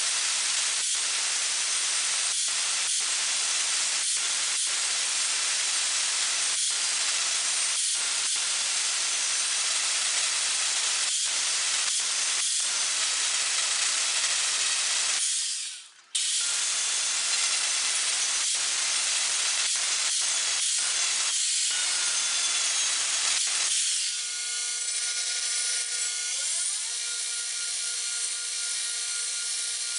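Angle grinder grinding a steel karambit blank, a loud steady hiss that breaks off briefly a little past halfway and then goes on. About three quarters through it gives way to a quieter belt grinder running with a steady hum of several tones.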